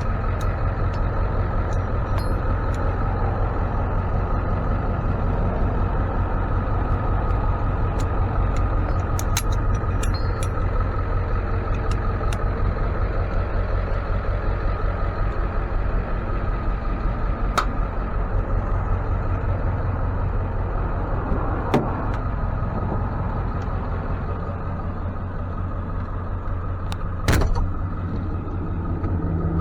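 Motor vehicle running steadily: a low, even engine hum with a few faint ticks and one sharp knock near the end.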